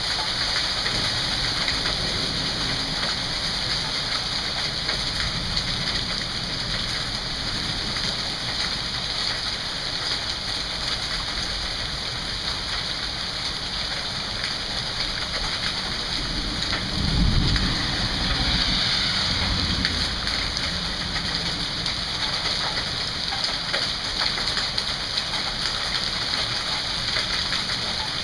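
Rain mixed with hail falling steadily on a lawn and concrete walkway, an even hiss. About two-thirds of the way through, a low rumble swells for a few seconds.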